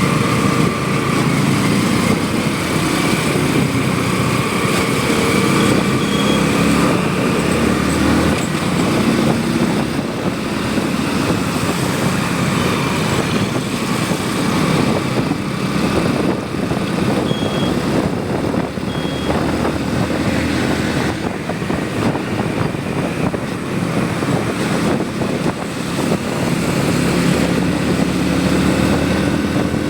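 Motorcycle engine running while riding, its pitch drifting gently up and down, over a steady rush of wind and road noise.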